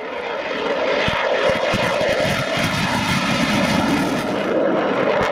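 Dassault Rafale's twin Snecma M88 turbofan engines at high power as the jet flies low past and climbs away: a steady rushing jet noise with a strong low drone, swelling up over the first second.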